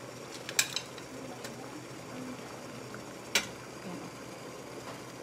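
Metal tongs clacking against a small metal steaming mold and the plate: a quick double clack about half a second in and a single sharper one about three and a half seconds in, over a low steady hiss from the steaming pot.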